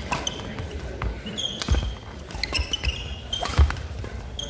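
Badminton rally: sharp racket hits on the shuttlecock and players' shoes squeaking and thudding on a wooden court floor, with the loudest impact about three and a half seconds in.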